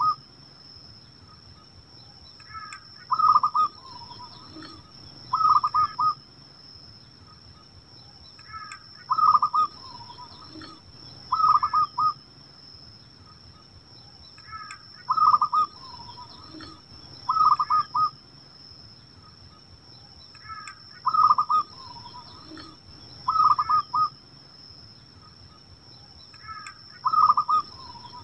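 Zebra dove (perkutut) cooing: pairs of short coo phrases about two seconds apart, the pair repeated about every six seconds, over a faint steady high-pitched whine.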